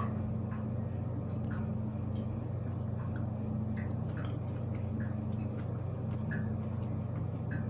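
A person eating from a ceramic bowl with a fork: soft chewing and scattered faint clicks of the fork, over a steady low hum.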